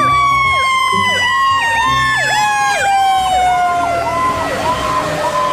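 Ladder fire truck's sirens sounding together: one siren yelps in fast dips and rises, about two to three a second, while a second siren tone glides slowly down in pitch.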